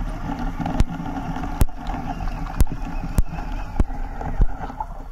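Underwater sound picked up by a camera under water: a steady muffled rush of water, with six sharp clicks spaced about half a second to a second apart.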